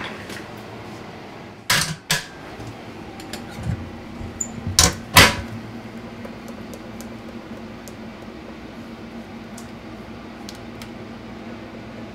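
Benchtop laboratory centrifuge being loaded and set: sharp clicks and knocks of its lid and the tube going in, the loudest about five seconds in, a short high beep, then light ticks of its keypad buttons, over a steady low hum.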